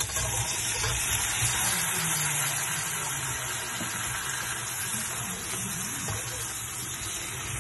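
Raw chicken pieces frying in hot oil with garlic and onion in a nonstick pan: a steady, dense sizzle as the meat goes in and is turned with a spatula, with a sharp knock right at the start.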